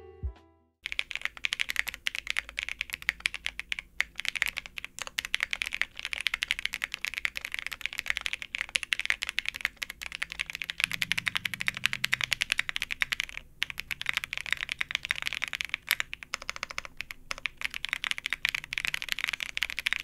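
Fast typing on a Zoom65 keyboard with a PC plate and no foam, fitted with BBN Tactile switches, unlubed and then lubed: a dense, continuous stream of key clacks with no spring or leaf ping. A short musical chime comes in the first second, and soft background music runs underneath.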